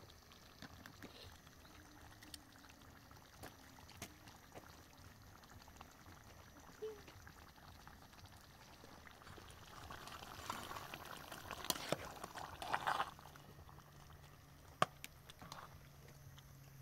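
Faint food-preparation sounds: liquid noise that swells about ten seconds in, with scattered light clicks and knocks. A low steady hum starts near the end.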